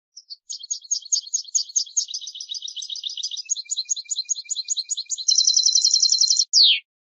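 European goldfinch singing one song phrase: a run of quick chirping notes, about five a second, that breaks into a fast, dense trill near the end and closes on a short falling note.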